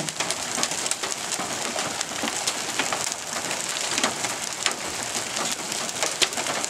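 Small hail, up to half an inch, coming down with rain: a steady hiss of falling rain with many scattered sharp clicks of hailstones striking.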